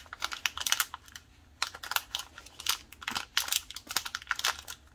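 Small plastic-and-foil zip pouch crinkling and crackling as it is handled and worked open, in irregular quick bursts with a short lull about a second in.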